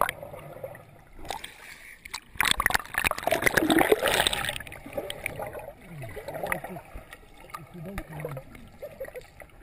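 Swimming-pool water heard from a camera held under the surface: muffled splashing and bubbling, loudest from about two and a half to four and a half seconds in.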